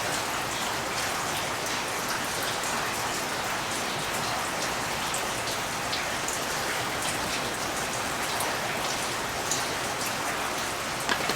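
Steady rain with scattered drips.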